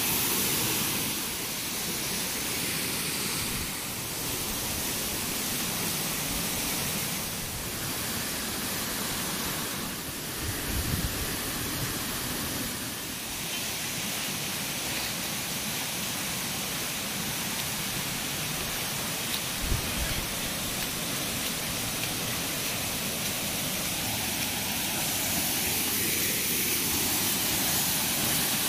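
Waterfall rushing: a steady, even roar of falling water. Two brief low bumps come through, about a third and two thirds of the way in.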